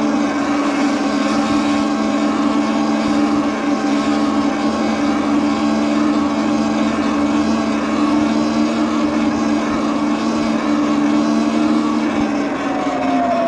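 Electric bike motor whining at a steady pitch under wind noise on the microphone; near the end the whine glides down in pitch as the bike slows.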